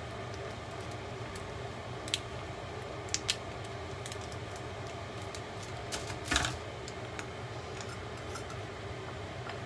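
Scissors snipping and plastic food wrap crackling as a package of ground meat is cut open: a handful of sharp clicks, the loudest cluster about six seconds in, over a steady low hum.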